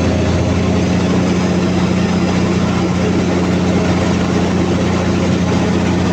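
Freshly overhauled Cummins QST30 V12 diesel genset engine running steadily at its rated 1800 RPM on test, a loud even drone with no change in speed.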